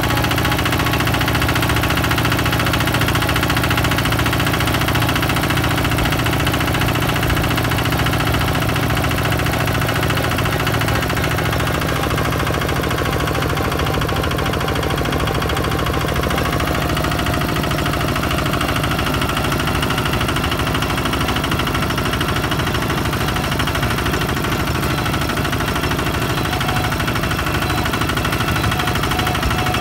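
Single-cylinder diesel engine of a two-wheel walking tractor running steadily as the tractor drives along.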